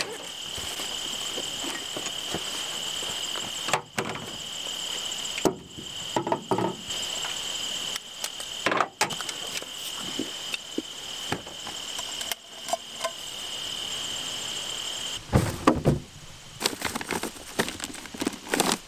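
Camping gear and food being handled on a pickup's tailgate: scattered knocks, clunks and rustles, with a steady high-pitched insect trill in the background that stops suddenly about three-quarters of the way through. Near the end come louder knocks and the rustle of plastic bags as a cooler is rummaged.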